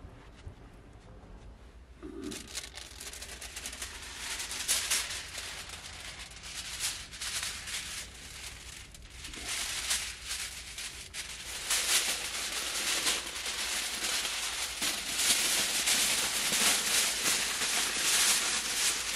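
Aluminium foil crinkling and rustling as a sheet is pulled off the roll and spread out flat. It starts about two seconds in and gets louder toward the end.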